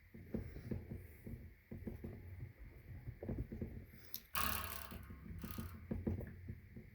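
Handling noise from an electric guitar being tuned: irregular small clicks and knocks from turning the tuning keys and shifting the instrument, with a louder rustling, scraping noise lasting about a second around four and a half seconds in.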